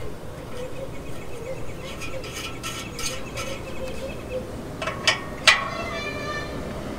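Small metal parts clinking as nuts and bolts are handled on a steel bumper light bracket: light taps, then two sharper clinks about five seconds in that ring briefly.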